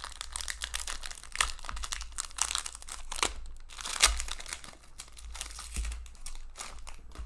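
Foil wrapper of a trading-card pack crinkling and tearing as hands open it, in quick irregular crackles with one sharp crackle about four seconds in.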